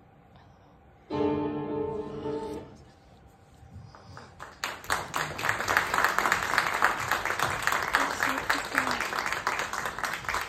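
A final held chord of recorded music sounds for about a second and a half, then audience applause builds about four seconds in and keeps going as the loudest sound.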